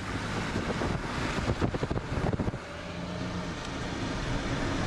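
Vehicle driving with a window rolled down: engine and road noise with wind buffeting the microphone, gusty through the middle, then steadier and slowly growing louder.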